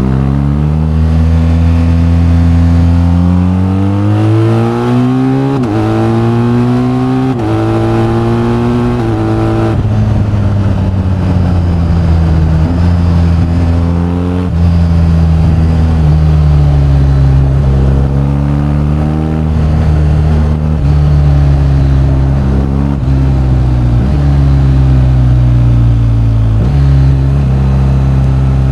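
BMW R1250GS boxer-twin engine accelerating up through the gears. The pitch climbs and drops sharply at three upshifts in the first ten seconds, then the engine runs at varying throttle with a few more shifts.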